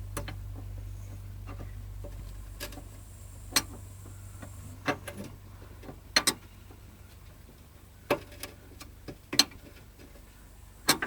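Metal clicking and tapping, a dozen or so sharp irregular taps, as a homemade wrench is worked in between two steering tubes and onto the steering rack's adjusting nut, over a faint low hum.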